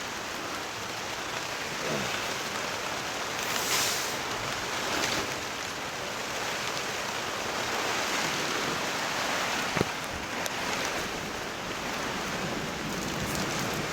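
Heavy rain drumming on a greenhouse in a storm: a steady hiss that swells a little now and then, with one sharp knock about ten seconds in.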